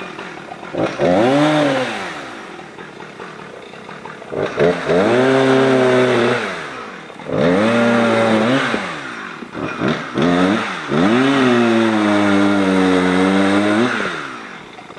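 Two-stroke chainsaw revving up four times, each time held at high speed for a second or more and then dropped back, as the felled tree is limbed and bucked. The last run is the longest, near the end.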